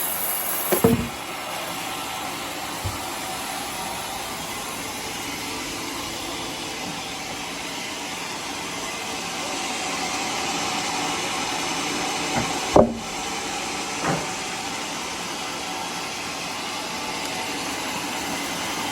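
Sawmill machinery running steadily, with a few short knocks, the loudest about a second in and near the middle.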